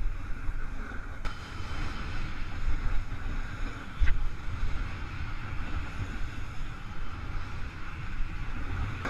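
Wind buffeting the microphone of a camera carried by a snowboarder on the move, over the steady hiss and scrape of the board sliding across groomed snow. There is a brief knock about four seconds in.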